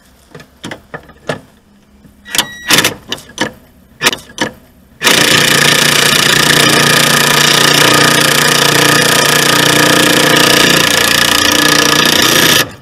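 Impact wrench hammering continuously on a front anti-roll bar drop-link nut for about seven seconds, starting about five seconds in and stopping abruptly just before the end. Before it come scattered metallic clicks from the socket and tools being fitted.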